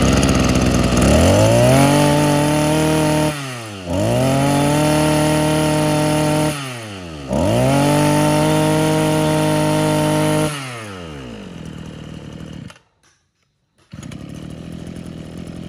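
Maruyama MB261 brush cutter's 26cc two-stroke engine running, revved up to full speed three times, each held for two to three seconds and dropping back in between, then falling to idle and cutting out about 13 seconds in.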